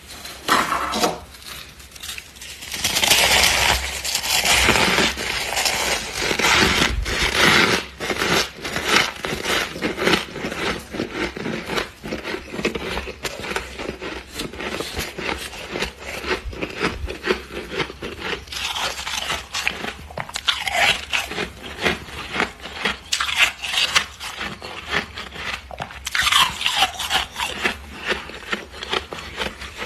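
Thick freezer frost being crunched and scraped: a dense, unbroken run of crisp crunches and scrapes.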